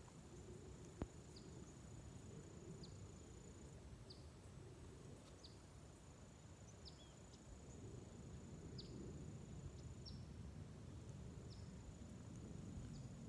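Near silence outdoors: a low rumble of wind or handling noise, with faint, short, high chirps that fall in pitch and come every second or so over a faint steady high whine. One sharp click about a second in.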